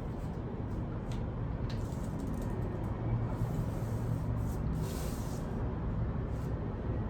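Pencil drawing lines along a ruler on pattern paper: a few short scratchy strokes over a steady low hum.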